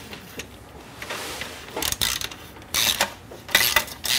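Hand ratchet wrench clicking in three short runs as exhaust flange bolts are tightened by hand rather than with a power tool.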